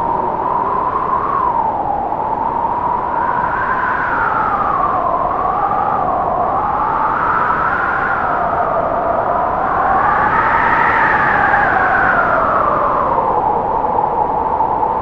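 Storm wind howling: a steady rush with a whistling tone that wavers slowly up and down, rising highest about ten seconds in.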